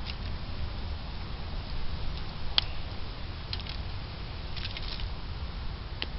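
A hand rubbing dry seasoning into a rack of raw pork spare ribs on aluminium foil: soft squishing and faint scattered foil rustles. There is a single sharp click about two and a half seconds in, over a steady low rumble.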